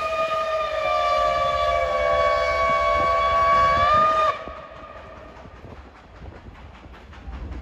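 Steam locomotive's whistle blowing one long, chord-like note of several tones that cuts off abruptly about four seconds in. Afterwards comes the quieter sound of the train pulling away, with a faint regular beat.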